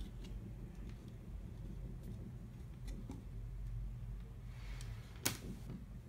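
Faint handling sounds as a small plastic camera and its cable are moved about on a wooden table, over a steady low hum, with one sharp click about five seconds in.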